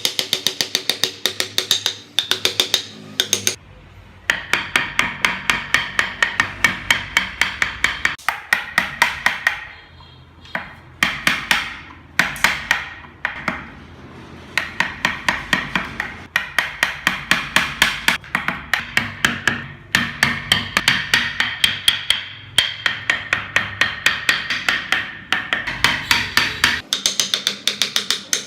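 Rapid, even hammer strikes, about five a second, each with a bright metallic ring, in runs broken by a few short pauses.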